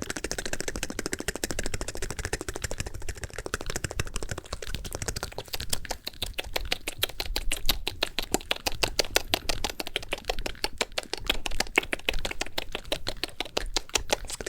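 Very fast ASMR mouth sounds: wet tongue and lip clicks and smacks made close to the microphone in a dense, rapid run, turning sharper and more distinctly separate clicks about five or six seconds in.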